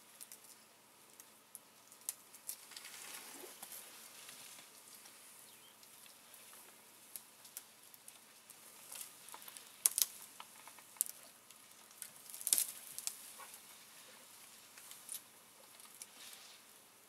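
African elephant feeding in thick bush: leaves and twigs rustle, crackle and snap as it pulls at branches with its trunk. The crackles come irregularly, with a few louder snaps about ten and twelve seconds in.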